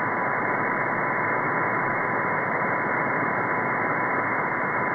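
Shortwave receiver audio on 3455 kHz: a steady hiss of band noise, cut off sharply just above 2 kHz by the receiver's filter, with a steady whistle near 1 kHz from a carrier. The noise blanker is switched on.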